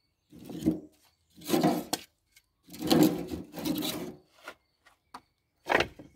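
Split firewood logs rubbing and scraping against each other as they are handled and stacked: about five rough scrapes, each under a second, with short gaps between.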